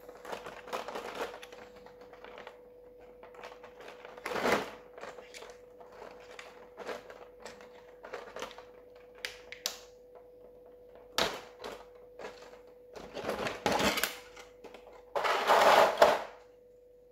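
Plastic miniature trays and packaging being handled: irregular clicks, taps and rustling, with a louder burst of crinkling plastic near the end. A faint steady hum sits underneath.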